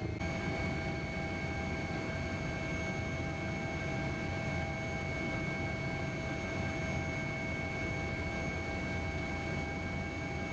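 Steady mechanical noise: a low rumble with several constant whining tones above it, unchanging throughout.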